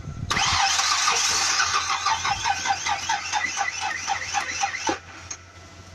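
A car's drive belt screeching loudly in a pulsing rhythm about five times a second as it slips over an alternator that is barely turning, then stopping suddenly about five seconds in. The belt is shredding and the alternator is taken to be failed.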